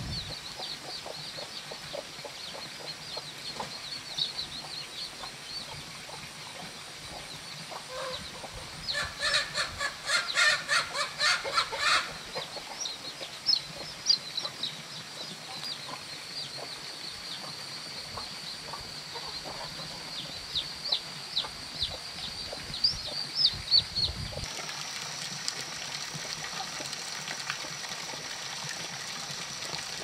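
Chickens clucking and calling, with many short high calls throughout and a run of loud, rapid calls about nine to twelve seconds in.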